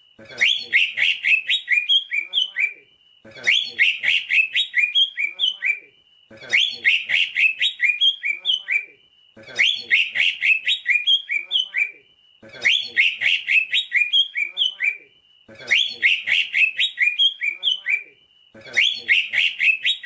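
Cucak ijo (greater green leafbird) song: a rapid chattering phrase of chirps, each phrase ending in a short rising whistle. The same phrase is repeated about every three seconds with brief gaps between.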